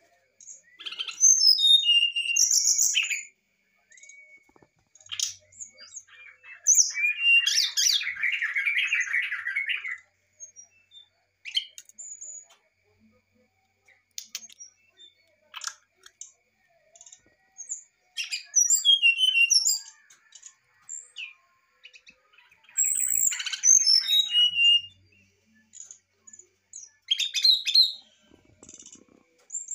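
Brown-chested jungle flycatcher singing in about five bursts of high, fluting whistled phrases separated by pauses, many notes sliding down in pitch, with a harsher rasping stretch about eight seconds in.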